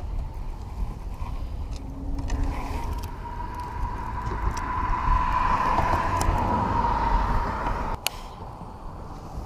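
A passing motor vehicle, its whine building over a few seconds and cutting off suddenly about eight seconds in, over a steady low wind rumble on the microphone and a few light clicks.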